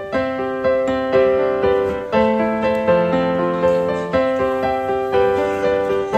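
Background piano music: a steady melody of single notes about every half second, each ringing and then fading.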